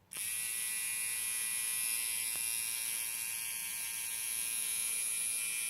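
Philips Series 5000 nose trimmer's small battery motor switching on, then running steadily with a high-pitched whine.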